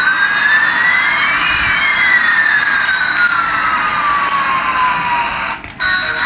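An electronic siren-like tone over a steady hiss. It slides slowly up for about a second and a half, then slowly down, and cuts off suddenly near the end.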